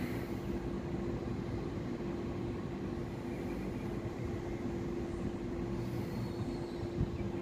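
Double-deck electric train at the platform giving off a steady electrical hum, one held tone over a low rumble.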